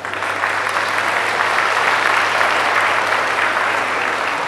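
Audience applauding, starting abruptly and easing off slightly near the end.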